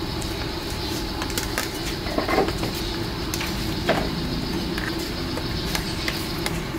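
Steady background noise of a street-food stall, with scattered light clicks and a couple of louder knocks about two and four seconds in.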